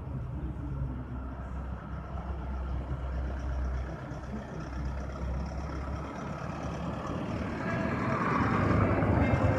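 Truck engine running in the street with a steady low rumble, then a louder vehicle passing close, building up near the end.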